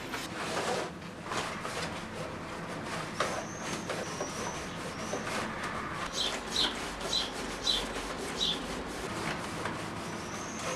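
Stiff paper and card rustling, creaking and tapping as a paper model wheel is handled and pressed into a paper wheel arch, in irregular small clicks. About six seconds in there are several short high squeaks.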